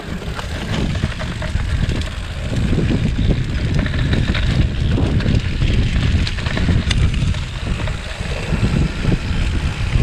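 A mountain bike rolling fast over a rough trail, with wind buffeting the microphone in a heavy, low, continuous rumble. Many short knocks and rattles from the bike and tyres on the ground run through it.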